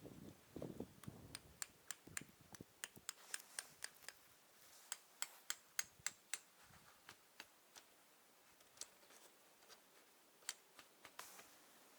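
A quiet run of irregular sharp clicks and ticks, a few to several a second, with a few soft low thumps in the first two seconds.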